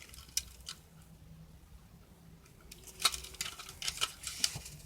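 A toy gun being handled, giving scattered clicks and taps, with a quick run of clicks about three seconds in.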